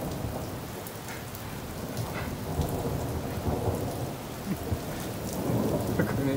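Steady rain falling with scattered sharp drop ticks, and low thunder rumbling underneath that grows a little louder in the second half.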